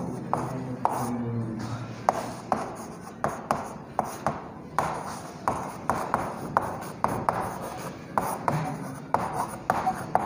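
Chalk writing on a blackboard: irregular sharp taps and short scrapes as the chalk strikes and drags across the board, about two a second.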